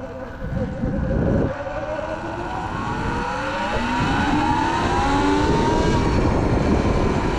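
Sur-Ron electric dirt bike pulling away: a whine from the motor and belt drive that climbs in pitch as it speeds up and then holds steady, over wind noise on the microphone. The belt sounds louder than the rider has noticed before, which he suspects is dirt or water buildup in the belt drive.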